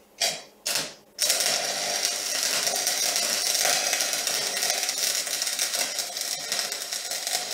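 Electric arc welding on aluminium: two brief arc strikes, then the arc held and crackling steadily from about a second in.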